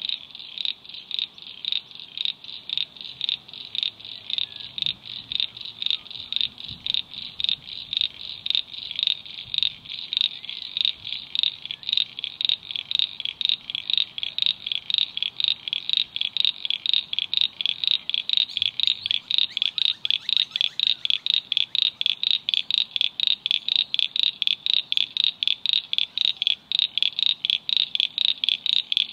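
A frog calling in a long, even series of short high notes, about three or four a second, growing louder over the stretch.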